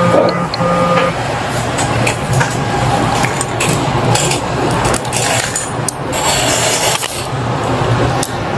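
Rustling and scraping handling noise with many scattered clicks, over a steady low hum.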